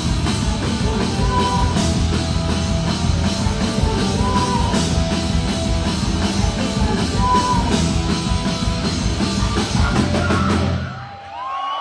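Live rock band playing loud, with heavy drums, bass and guitars and a short high guitar figure repeating about every three seconds. The music cuts off abruptly near the end.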